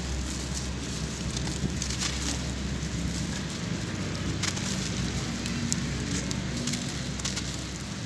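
Dry sand-cement clumps crumbled by hand, a gritty crackle of many small crunches as the powder and grains pour down, over a low steady rumble.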